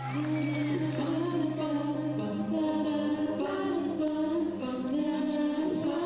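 Live musical-theatre singing: voices sing a slow melody in long held notes over a sustained low accompaniment that changes note about two seconds in.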